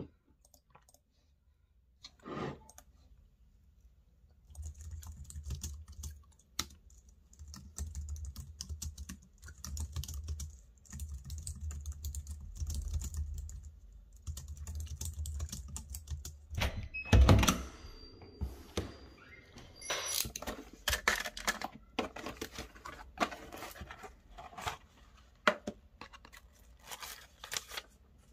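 Typing on a low-profile computer keyboard, a quick run of key clicks. About two-thirds of the way through comes one louder knock, followed by sharper, more spaced-out clicks and taps.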